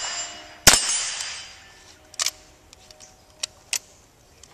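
A .22 rimfire rifle shot about a second in, followed by steel target plates ringing and fading, then three fainter, quicker cracks in the next two seconds as the string goes on.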